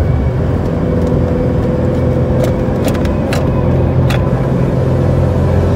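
Car driving at highway speed, heard from inside the cabin: a steady drone of engine and tyre noise, with a few light clicks around the middle.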